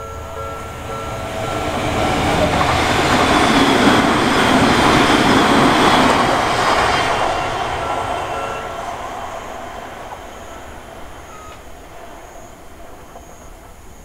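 An Odakyu Line electric train passes over a Japanese level crossing at night, rising to a loud rush of wheel and rail noise through the middle and then fading away. The crossing's warning bell rings steadily at the start and is swallowed by the train as it passes.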